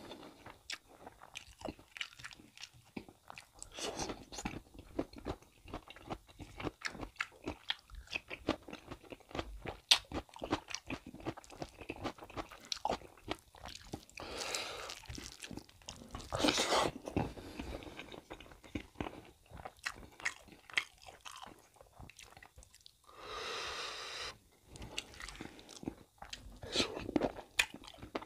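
Eating sounds: chewing and wet mouth clicks over a mouthful of beef curry and rice, with fingers mixing rice and curry by hand. Many small sharp clicks throughout, louder for a couple of seconds about halfway.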